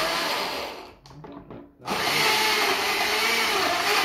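A 500-watt countertop blender gives a short pulse that winds down, then is switched on again about two seconds in and runs steadily at full power, chopping chunks of unpeeled pineapple into juice.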